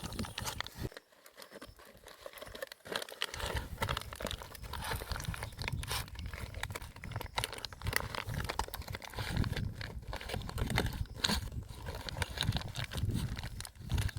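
Aluminium foil crinkling and rustling as it is handled, in a long run of irregular crackles.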